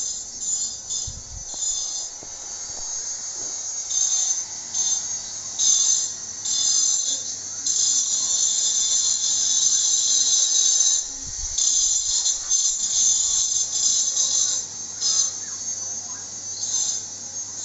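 Grinding machine at work: a loud, high-pitched grinding noise that swells and drops away in uneven bursts, some brief and some lasting several seconds, over a steady low motor hum.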